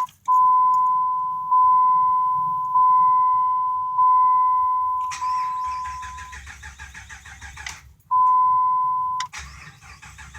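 The dashboard warning chime of a 2005 Dodge Ram dings repeatedly. Then the starter cranks the 5.7 Hemi V8 with a fast rhythmic churning. The engine turns over but does not fire. The chime sounds briefly again and the cranking repeats near the end. It is a crank-no-start, which the owner first suspected was no fuel reaching the engine.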